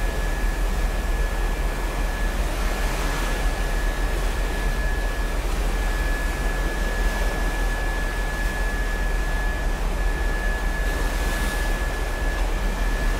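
Steady wind and ship noise on the open deck of a cruise ship under way: a low rumble and an even hiss, with a thin steady high whine over them.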